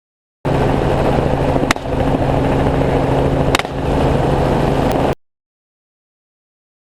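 Steady helicopter engine and rotor noise, broken by two sharp rifle shots about two seconds apart. The sound cuts in half a second in and drops out abruptly after about five seconds.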